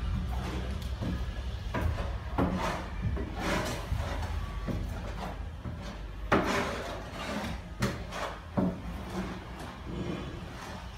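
A hand trowel scraping across the floor as latex flooring glue is spread, in irregular strokes of under a second each, with a longer scrape about six seconds in.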